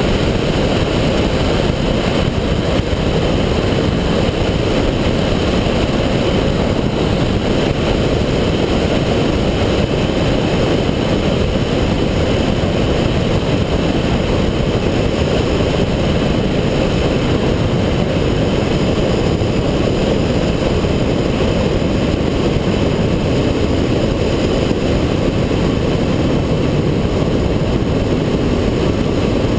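Cessna 172's piston engine and propeller running, heard from a wing-mounted camera as a loud, steady, dense rumble mixed with wind rush on the microphone.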